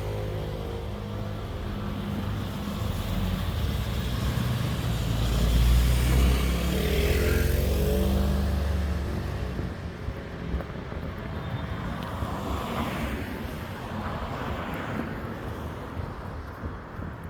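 Street traffic: motor vehicles passing close by, with a heavy low engine rumble loudest in the middle, then tyre and engine noise of further vehicles going past.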